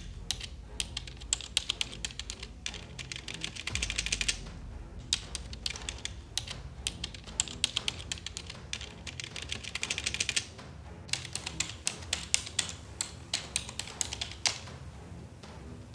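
Fast typing on a computer keyboard: keys clattering in quick runs with brief pauses, over low background music.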